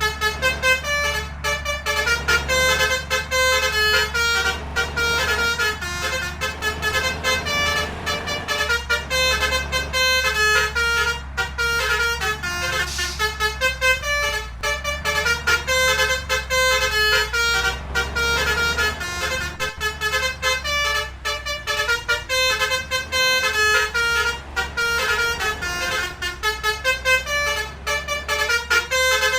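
Multi-tone 'telolet' basuri musical horn on a vehicle playing a fast tune of short notes, over the low rumble of the engine.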